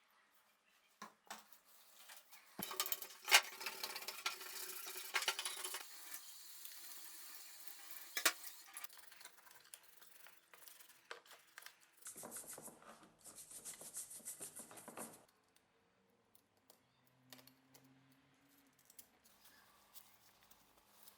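A series of small metal clinks and knocks with some scraping, as when small metal parts and tools are handled. The sounds come in separate takes with short gaps between them.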